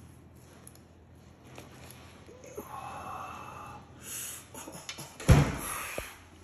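A loud thump on a kitchen worktop about five seconds in, with breathy gasps around it.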